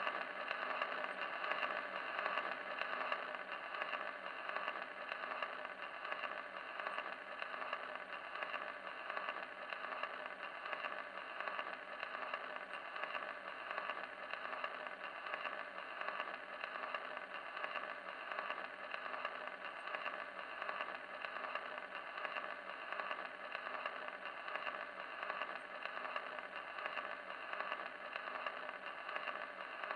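Steady, even rushing noise with a faint flutter, holding unchanged throughout.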